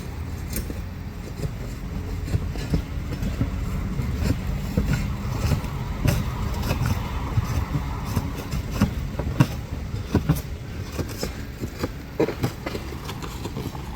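Outdoor roofing work-site noise: a steady low rumble with frequent sharp clicks and knocks scattered through it.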